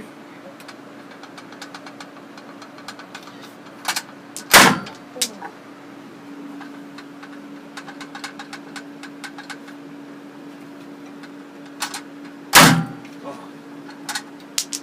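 Gatling gun firing single shots: two loud reports about eight seconds apart, each with one or two fainter bangs close by, over a steady hum and light clicking.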